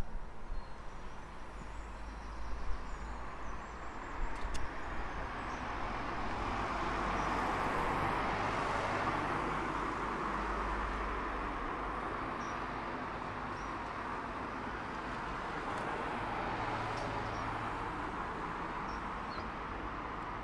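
Steady street traffic noise, a roadway hiss that swells about eight seconds in as if a vehicle passes, with a few sharp knocks in the first few seconds.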